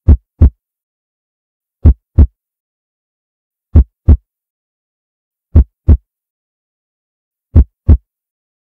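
Heartbeat sound effect: five deep double beats, each pair a little under two seconds after the last, with dead silence between them.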